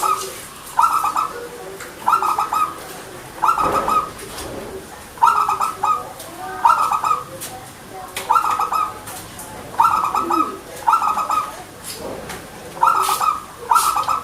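Zebra dove (perkutut) cooing: short, rapid, trilled coo phrases repeated about once a second, some in quick pairs.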